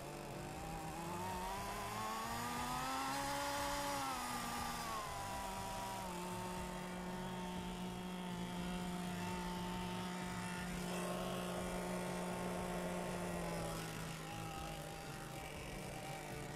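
Model airplane's glow-plug engine running at high speed, its pitch rising and falling over the first few seconds, then holding steady, dropping slightly near the end.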